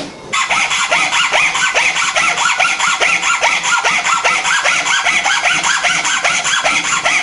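Hacksaw cutting through a small block of hardwood axe handle clamped in a bench vise, in quick, even back-and-forth strokes that start about a third of a second in.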